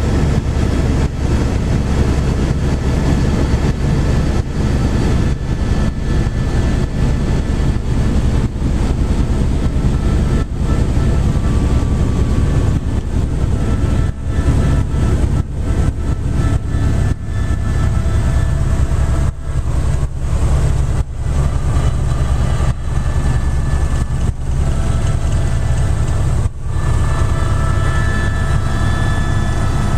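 Helicopter running: a loud, steady drone of engine and rotor with a fast, even throb of the blades.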